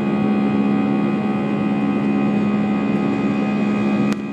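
Airliner's underwing turbofan jet engines and rushing air during the climb after takeoff, heard inside the cabin: a steady drone with a low hum and several held tones. A click near the end, after which it is a little quieter.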